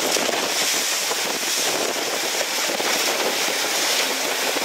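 Steady rush of wind on the microphone mixed with the hiss of the foaming wake and spray behind a Tricat 25 trimaran sailing fast in strong wind.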